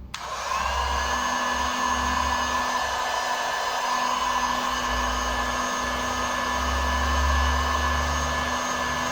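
A small electric motor switched on and running steadily, with an airy hiss and a steady high whine.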